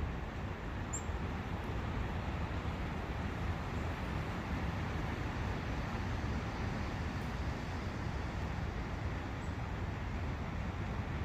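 Steady rushing of a forest brook, an even flow of water noise with no breaks.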